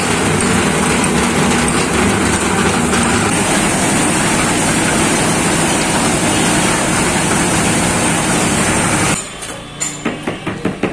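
Concrete drum mixer running loudly and steadily. About nine seconds in it gives way to quieter scraping and a quick run of taps as a trowel packs wet concrete into plastic tile moulds.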